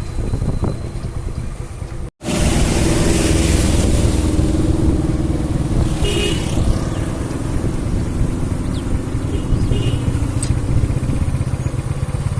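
Road traffic with motorcycle engines running, and brief horn toots about six and ten seconds in. The sound cuts out for a moment about two seconds in.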